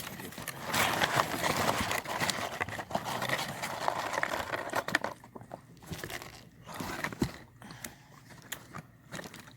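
Close-miked eating sounds: chewing and wet mouth clicks, busy for the first half, then thinning to scattered single clicks.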